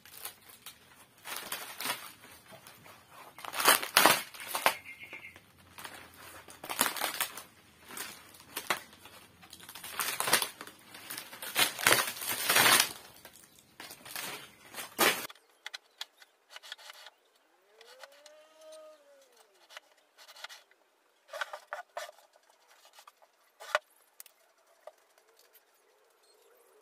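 Wooden board, rotten and termite-eaten, being handled and pulled off a homemade pantorouter: irregular knocks, scrapes and crumbling rustles. After about fifteen seconds the sound thins to a few light taps and clicks.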